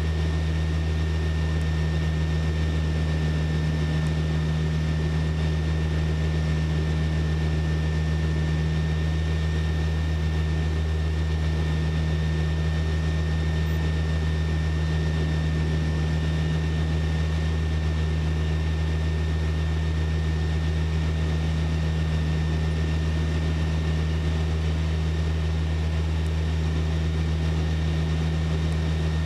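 Light aircraft's piston engine and propeller running steadily at climb power, heard from inside the cockpit as a constant, unchanging low drone.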